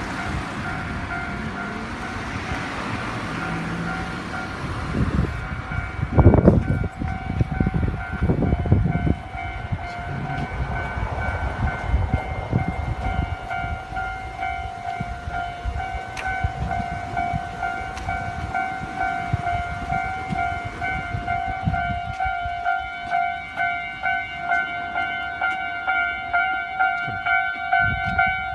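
Japanese level-crossing warning bell ringing steadily while a local electric train passes, its wheels rumbling and knocking over the rail joints, loudest about six seconds in. The train sound fades after about thirteen seconds and the crossing bell keeps ringing in a regular beat.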